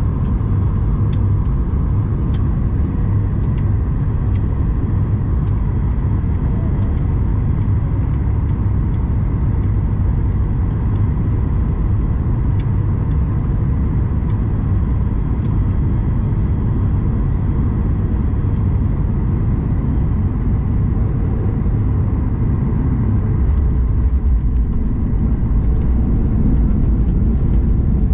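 Cabin sound of a Boeing 737 MAX 8 landing, heard from a window seat over the wing: a steady rumble of airflow and the CFM LEAP-1B engines with a faint engine tone, from short final through touchdown and onto the rollout. The rumble grows louder and deeper near the end.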